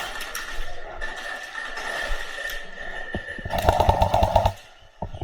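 Airsoft gun firing a full-auto burst of about a second, a fast, even rattle of shots, near the end, preceded by a couple of single shots.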